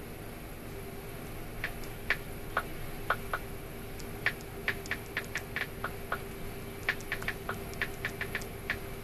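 Irregular short, sharp ticks, two or three a second, over a steady low hum.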